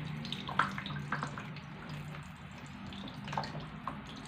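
Tap water running over a whole tuna being rinsed in a kitchen sink, with a few short splashes as the fish is handled. A steady low hum runs underneath.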